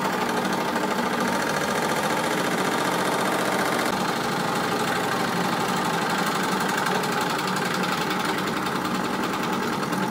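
Mamod SE3 twin-cylinder superheated toy steam engine running steadily at speed: a fast, even chuffing beat from its cylinders.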